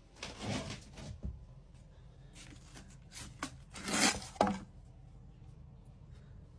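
A few short scrapes and rustles, like rough material being rubbed or shifted, with the loudest pair about four seconds in.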